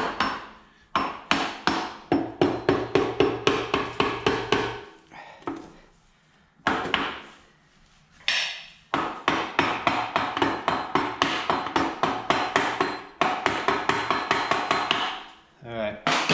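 Power impact driver hammering in rapid rattling runs as it backs out the bolts of the engine's side (stator) cover. There are two long runs with a few short bursts between.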